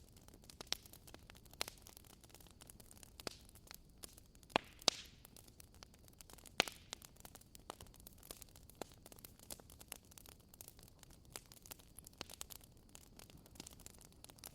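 Wood fire crackling, with irregular sharp pops and snaps over a low, steady hiss; the loudest pops come about four and a half, five and six and a half seconds in.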